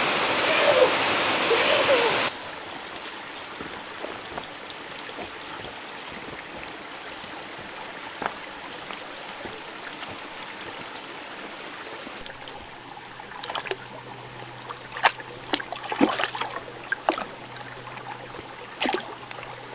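Rushing water from a waterfall or stream, loud for the first two seconds or so, then after a sudden cut a softer, steady flow. Scattered sharp clicks and knocks come in over the last several seconds.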